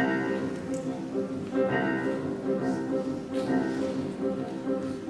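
Piano accompaniment playing the instrumental introduction to a song, with sustained chords freshly struck about every two seconds.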